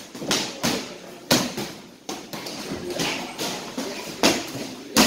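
Gloved punches and kicks landing on Thai pads and focus mitts: about eight sharp smacks at uneven intervals.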